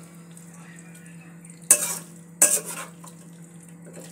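Spatula stirring pieces of chicken frying in a dark sauce in a large aluminium pan, with two loud scraping strokes a little past the middle, about half a second apart.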